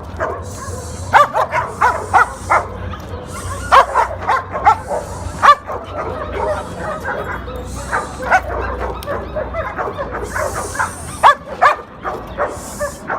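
Dogs barking in many short, sharp, overlapping barks, with the loudest barks about a second in, around four and five and a half seconds, and again near eleven seconds.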